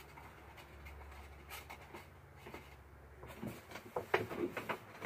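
Faint handling noises: light taps and rustles of small objects being moved on a shelf, a few sharper taps near the end, over a low steady hum that stops about three and a half seconds in.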